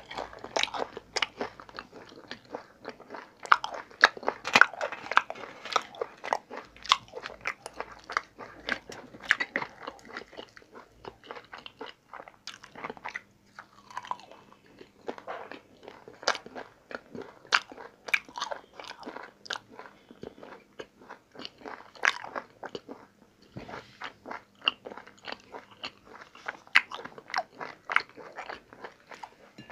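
Close-miked chewing and lip-smacking of a man eating paratha and curry with his fingers: a steady run of wet mouth clicks, several a second.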